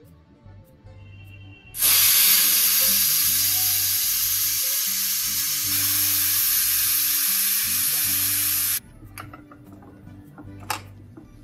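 Stovetop pressure cooker letting off steam through its weight valve: a loud, steady hiss lasting about seven seconds that cuts off suddenly. This is one of the 'whistles' counted while the chickpeas cook under pressure.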